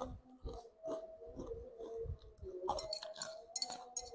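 A person chewing spicy fried noodles and crunchy fried fish-ball chips (basreng) with the mouth close to the microphone: wet chewing with irregular crisp crunches.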